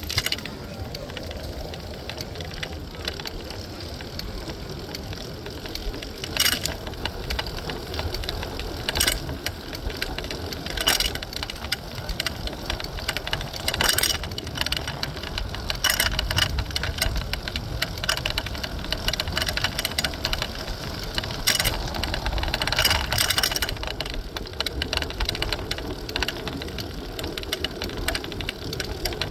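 Riding a city-share bicycle: a steady rumble of wind and riding noise on the handheld phone's microphone, with short sharp rattles from the bike several times.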